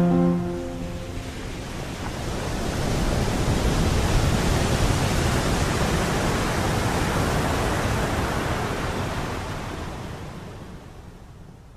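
Steady rushing road and wind noise inside a car cabin as the car rolls off a ferry ramp onto the pier road. It swells in over the first few seconds and fades out near the end.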